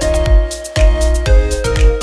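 Background music with a steady beat of low thumps, about two a second, under held notes.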